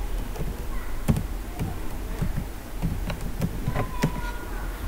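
A few separate computer keyboard keystrokes over a steady low hum, the clearest about a second in and a short cluster later on.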